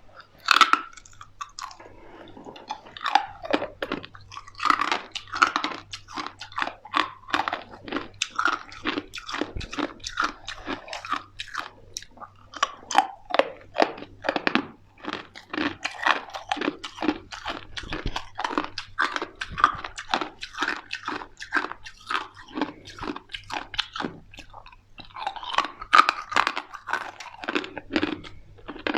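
Close-up crunching and chewing of ice: many sharp bites and crunches, several a second, with a few louder bites about a second in and again near the end.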